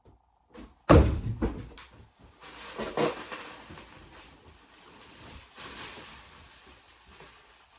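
Animatronic parts being unpacked from a cardboard box: a heavy thump about a second in, then rustling and shuffling of packaging with small knocks.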